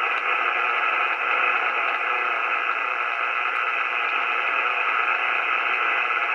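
Icom R71E receiver's speaker giving a steady rush of noise in USB mode as it is tuned down through the low-frequency band around 100 kHz. The noise is heavy local interference, which the owner blames on something a neighbour switched on.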